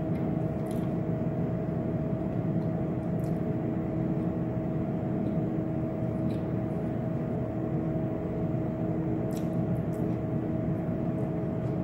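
A steady mechanical hum with two held tones, and a few faint light clicks.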